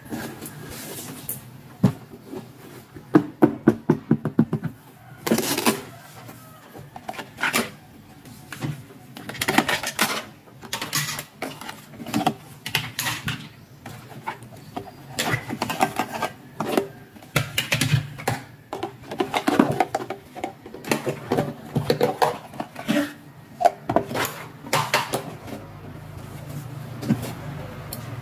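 Small plastic toy accessories clicking and knocking together while they are handled and lifted out of a box, with irregular rustling in between.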